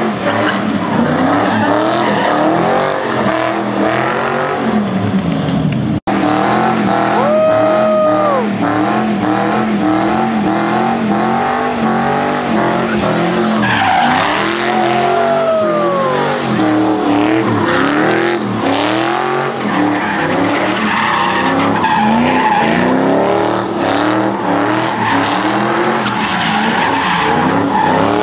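Car doing donuts with its tyres screeching on the pavement and its engine revving up and down over and over. A short steady high note sounds about seven seconds in.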